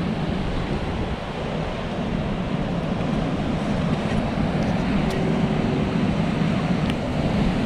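Ocean surf breaking and washing over a rocky reef, a steady rush, with wind rumbling on the microphone.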